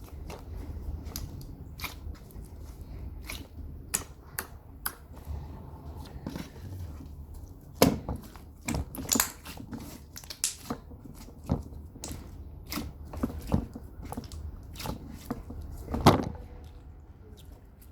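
Bubbly slime being squished and pressed by hand, giving irregular crackling clicks and air-bubble pops, with a few louder pops midway and near the end.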